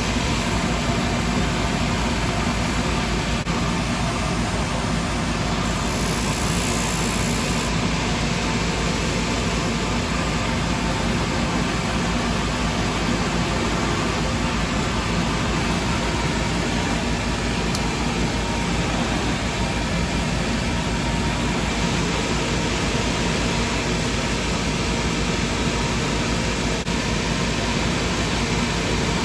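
Shoe finishing machine running with a steady drone, its motor-driven brushes and buffing wheels spinning as a leather sole and heel are held against them.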